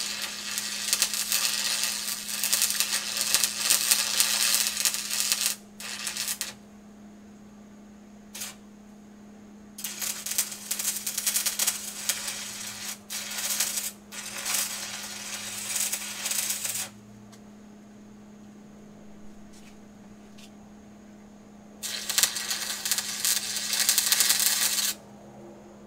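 Stick welding arc crackling and spitting as weld passes are laid around a steel plate joined to square stock, in three runs of several seconds with pauses of a few seconds between. A low steady hum sits underneath.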